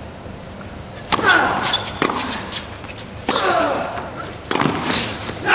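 Tennis rally on a hard court: racket strikes on the ball about once a second, some with a short grunt from a player.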